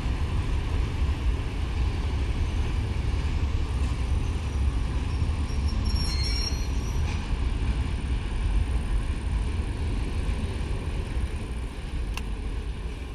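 Diesel-hydraulic shunting locomotive's engine running, a steady low rumble that fades near the end.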